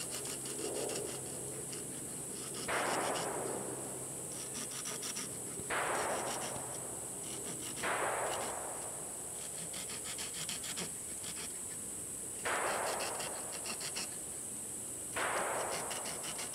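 Folding pocketknife's saw blade cutting into a wooden stick in short strokes, scoring a ring around it. The blade cuts on both the push and the pull. There are about five louder passes, a few seconds apart, each starting sharply and trailing off, with fast ticking of the teeth between them.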